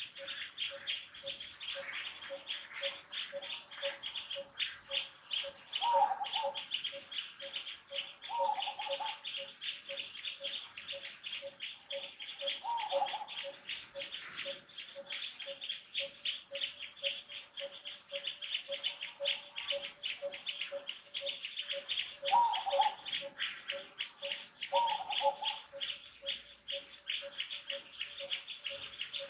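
Birds and insects. Insects chirr without a break, a bird repeats one low note at an even beat, and a few short calls that fall slightly in pitch come every few seconds.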